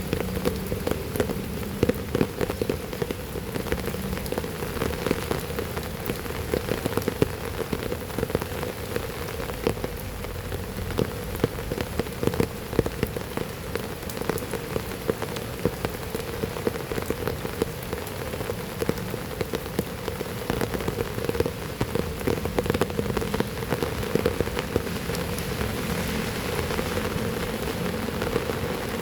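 Heavy rain falling steadily, a dense patter of individual drops striking a hard surface.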